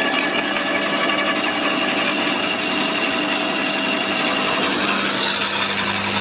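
Electric garden shredder running, its rotary cutter chewing through dry sticks and twigs with a steady motor hum. Near the end the chipping eases and the motor hum comes to the fore as the machine runs with little or no load.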